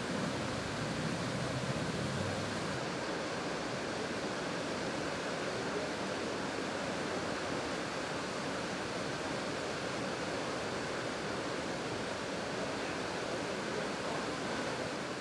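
Steady rush of churning water at the outflow of a steam-driven scoop-wheel pumping station, the water turbulent and white where the wheels discharge it.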